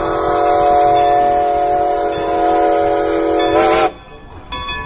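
Steam locomotive whistle: one long, steady, loud blast over steam hiss. About four seconds in it wavers briefly and breaks off, leaving quieter hissing.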